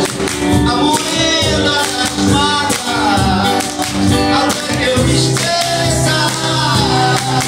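Live acoustic band: a man singing into a microphone over strummed acoustic guitars, with light hand percussion keeping the beat.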